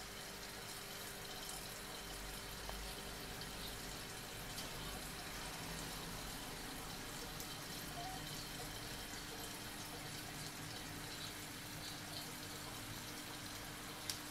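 Aquarium water splashing and trickling steadily at the surface of the tank, with a faint steady hum under it and a small click near the end.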